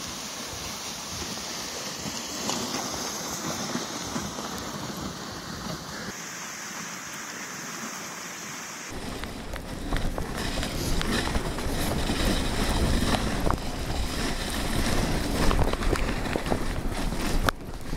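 Dog sled running over snow: a steady hiss of the runners and moving air, turning louder and rougher about nine seconds in, with wind buffeting the microphone.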